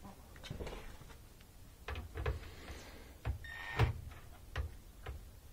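Scattered knocks and clicks of tools being handled against the washer's panels, then a brief whir of a Milwaukee cordless drill-driver about three and a half seconds in, working on a panel screw.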